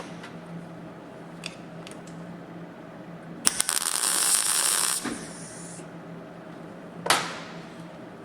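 A short tack weld on sheet-steel sill panel: about a second and a half of crackling, hissing welding arc about halfway through. Near the end comes a single sharp metallic clank that rings briefly.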